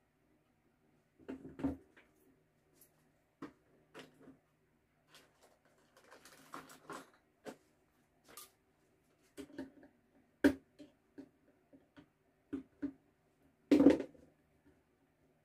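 Scattered clicks, taps and knocks of hand tools and hands handling an opened amplifier's metal chassis and wiring. The louder knocks come about a second and a half, ten and fourteen seconds in.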